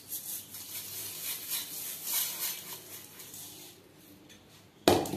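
Granulated sugar poured onto carrot paste in a steel kadai, a rustling hiss that swells and fades over a few seconds. Near the end comes a sudden clank of the steel spatula against the pan.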